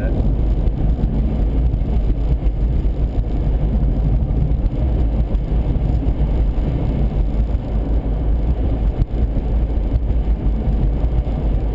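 A car driving along a highway, heard from inside: a steady low rumble of road and wind noise, with no distinct engine note.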